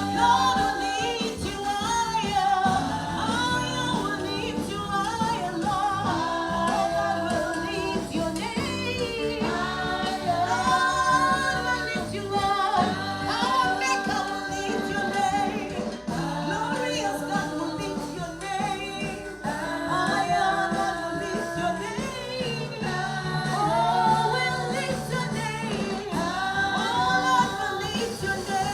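A gospel song: singing over instrumental accompaniment with a steady bass line.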